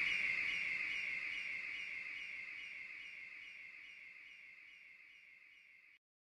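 High electronic chirping left over from the end of a hip-hop track: a steady high tone with small chirps about four times a second. It fades out evenly and cuts off near the end.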